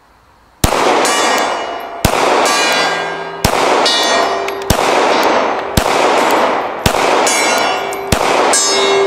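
Seven 9mm pistol shots from a Glock 45, roughly one every second and a quarter, starting about half a second in, each one striking a hanging steel gong. The gong clangs with every hit and keeps ringing between shots.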